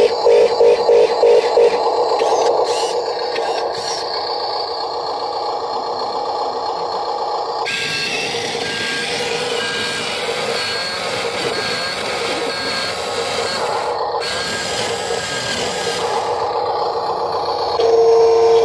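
Huina RC dump truck working: a fast run of electronic beeps at the start, then a steady electric whir while the tipper bed rises and dirt slides off onto gravel. A steady electronic tone sounds near the end.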